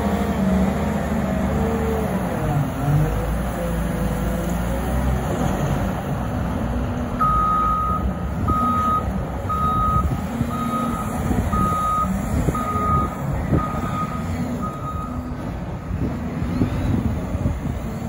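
Caterpillar 950M wheel loader's diesel engine running and revving while it lifts and dumps a bucket of snow into a dump truck. Midway a reverse alarm sounds, about nine single-pitch beeps roughly one a second.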